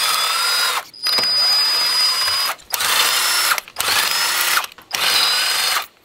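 Cordless impact wrench hammering a truck's lug nuts loose: five runs of about a second each with short pauses between, its motor whine rising and falling in each run.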